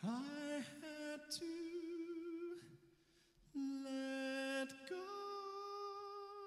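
A solo voice singing soft, wordless held notes with little or no accompaniment. Each note scoops up into pitch and is held. There is a short break about two and a half seconds in.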